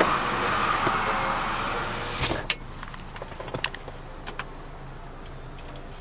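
2005 GMC Canyon's power window motor running steadily and stopping just over two seconds in. Then several light clicks as the dashboard radio buttons are pressed.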